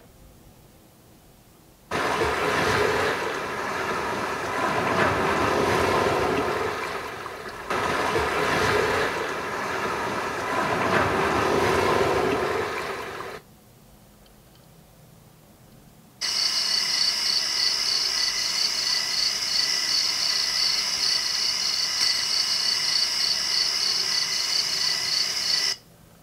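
JBL Pulse 5 Bluetooth speaker playing its built-in ambient sounds: an ocean-wave track of rushing surf that swells and eases for about eleven seconds. After a short pause comes a second track, a steady high-pitched trill with a rapid pulse, for about ten seconds.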